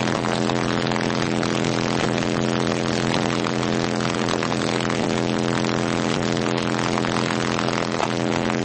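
Engine idling steadily: a constant droning hum that holds one pitch without revving.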